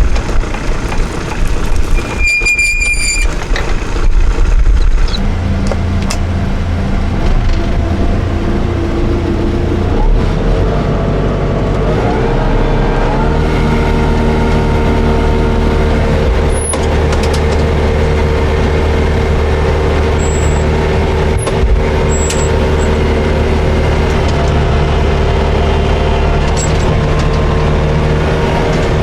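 Tractor engine running steadily while pulling and driving a John Deere 535 round baler. A short high-pitched beep sounds about two seconds in, and the engine note shifts about twelve seconds in.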